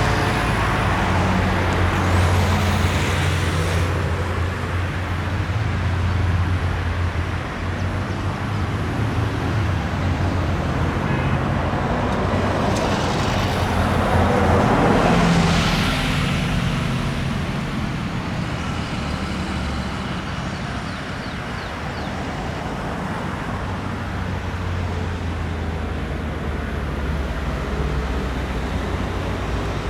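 Lockheed KC-130J Hercules's four Rolls-Royce AE 2100D3 turboprops running with a steady low propeller drone. A louder rushing swell builds and fades about fifteen seconds in.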